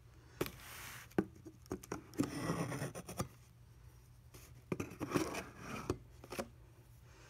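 Cardboard box and its packaging being handled: a string of rustles, scrapes and sharp clicks, busiest about two seconds in and again about five seconds in.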